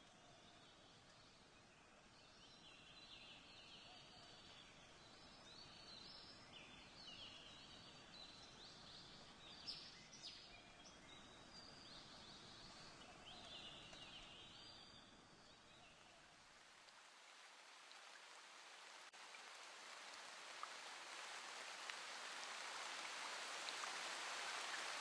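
Faint outdoor nature ambience: birds chirping in many short, high calls for about the first sixteen seconds, then a steady hiss of falling water that grows louder toward the end.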